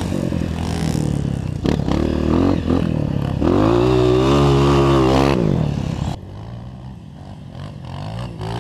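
Honda CRF 230 dirt bike's single-cylinder four-stroke engine revving up and down under throttle, with a few sharp knocks about two seconds in. A long rising rev from about three and a half seconds drops off sharply near five and a half seconds. Just after six seconds the sound changes abruptly to a quieter, lower engine running.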